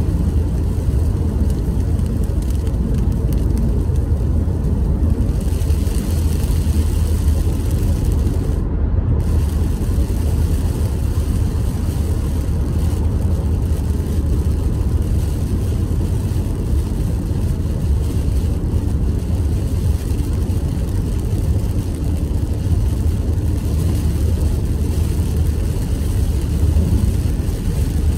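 Steady road noise heard inside a moving car on a wet highway: a low rumble of engine and tyres, with a hiss over it that brightens about five seconds in.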